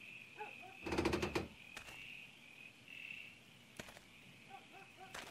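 Night-time crickets chirring steadily in one high note. A cluster of sharp knocks and clatter comes about a second in, with a few single clicks later.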